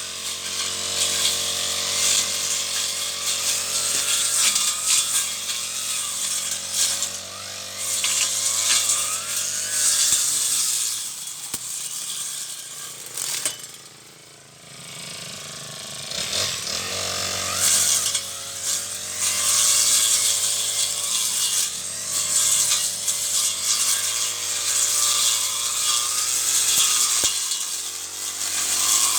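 Brush cutter engine running under load as it cuts weeds, with a whirring hiss from the cutting head. About halfway through it drops to a lower, quieter note for a few seconds, then picks up again.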